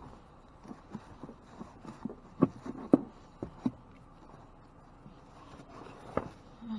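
Whole coconuts being handled in a cardboard box: a string of dull knocks and bumps, thickest about two and a half to three seconds in, with another near the end.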